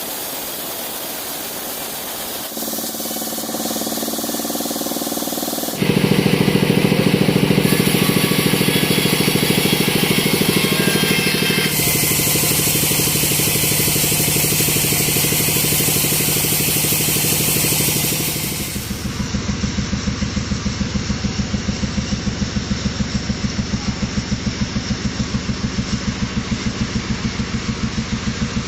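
Sawmill machinery running, in several abruptly cut segments with steady tones. From about two-thirds of the way through, an engine idles with a rapid, even pulse.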